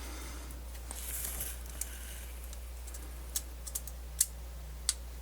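Small sharp clicks and taps, about five of them spread over a few seconds, with a brief soft rustle about a second in, from handling the small plastic and metal parts of a MiniDisc player's mechanism. A steady low hum runs underneath.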